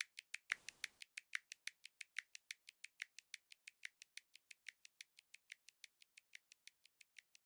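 Faint, even ticking, about six ticks a second, slowly fading away.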